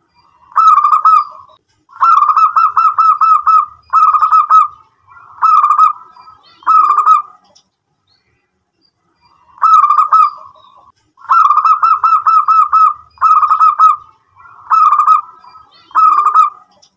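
Zebra dove (local perkutut) cooing: quick runs of short, stuttering notes strung into phrases, in two long bouts with a pause of about two seconds between them.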